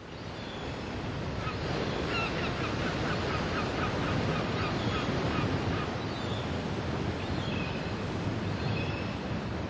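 Ocean surf washing onto a beach, a steady rushing that swells up in the first second. Over it, birds give runs of short, high calls from about a second and a half in, and again near the end.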